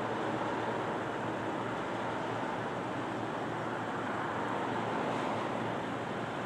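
Steady rush of distant highway traffic.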